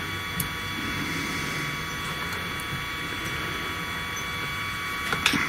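Steady electrical hum with a faint high whine, and light metallic clicks (one about half a second in, a few more near the end) as a two-flute end mill is pushed into the router spindle's ER11 collet.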